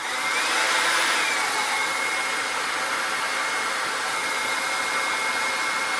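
Hot-air blower heating heat-shrink tubing over a soldered wire joint: it comes up to speed at the start, its fan whine rising slightly, then runs steadily with a loud, even rush of air.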